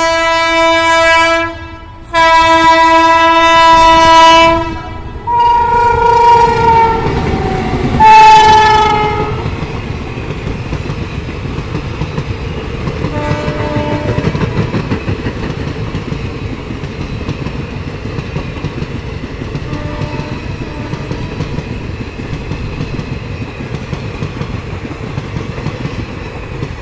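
WAP-7 electric locomotive sounding its horn in four long blasts, the last two sliding down in pitch as it passes. Then the express's coaches rush by with a steady rumble and wheels clattering over the rail joints.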